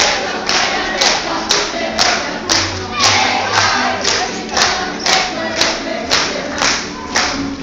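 Folk dancers stamping in step on a wooden stage, about two stamps a second at a steady beat, while a group of voices sings a folk song in chorus.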